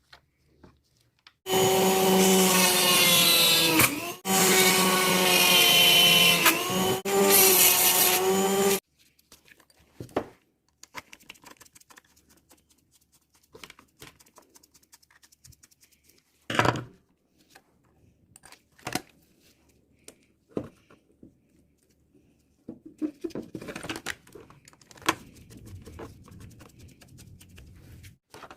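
A small electric power tool motor runs in three bursts, together about seven seconds, its pitch wavering a little. Sharp clicks and knocks of parts being handled follow.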